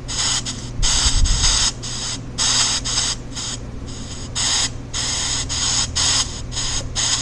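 Pink noise from an EVP app, chopped into irregular hissing bursts that cut on and off abruptly. The bursts run from a fraction of a second to about a second long, some loud and some soft.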